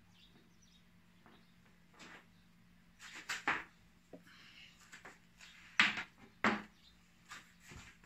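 Scattered clicks and knocks of RCA cable plugs and tape being handled on a tabletop, with the two loudest knocks about six seconds in. A faint steady hum runs underneath.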